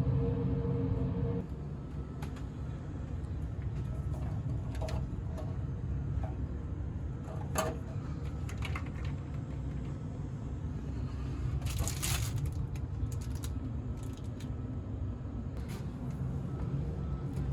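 Steady low hum of a ferry's machinery and ventilation heard inside a passenger cabin, with a few scattered clicks and a short rustle about twelve seconds in.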